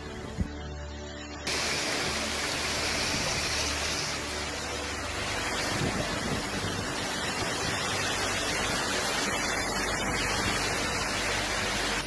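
Heavy hail and rain pelting down on a street, a dense, steady rush of noise that starts abruptly about a second and a half in. Faint background music runs underneath, and a single sharp click sounds just before the storm noise begins.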